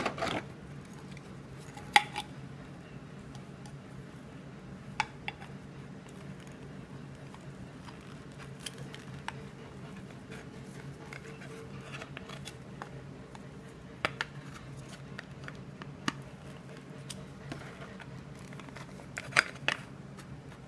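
Handling noise from a cotton-gloved hand moving a small plastic figure and brushing against the camera: scattered clicks and knocks, the loudest at the start, about two seconds in and near the end, over a steady low hum.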